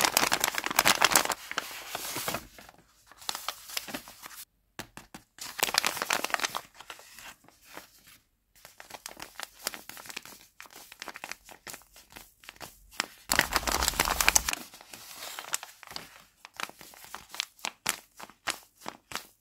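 Paper and clear tape crinkling and rustling as a handmade paper blind bag is opened and its taped paper squishy is handled and squeezed. The crinkling comes in bursts with short pauses between them, loudest near the start and again past the middle.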